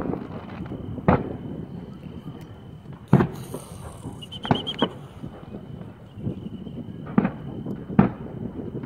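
Fireworks going off at a distance across a city, about six scattered bangs and pops of differing loudness with a low rumble between them. A faint steady high tone runs underneath.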